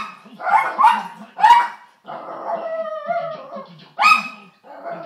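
Dog barking: three sharp barks in the first two seconds and another about four seconds in. Between them comes a wavering, drawn-out whine.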